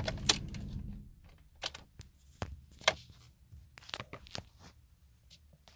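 A Dodge Ram pickup's low, steady running rumble cuts off abruptly about a second in as the ignition is switched off, just after a sharp click. Scattered clicks and knocks of hands in the cab follow.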